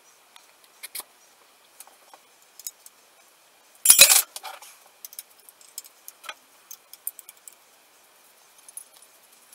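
Metal hand tools clinking during engine dismantling: light scattered ticks and clicks of a spanner working on the cylinder barrel, with one loud jangle of metal tools about four seconds in.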